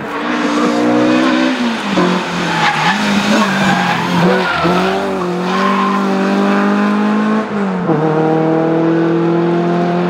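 Renault Clio Sport's four-cylinder engine running hard as the car drives a rally stage and passes close by, the engine note dropping sharply twice, about two seconds in and again about eight seconds in.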